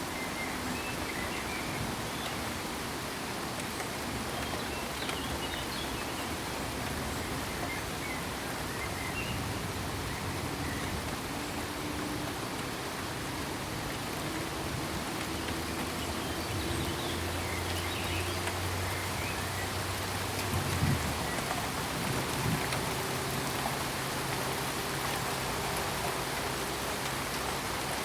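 Steady rain falling, an even hiss of drops without a break, with a brief low thud about two-thirds of the way through.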